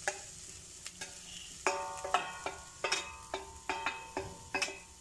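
A metal stirring utensil moving grated coconut and chopped jackfruit in a pan of hot ghee, knocking against the pan with ringing clinks about twice a second from about a second and a half in, over a faint steady sizzle.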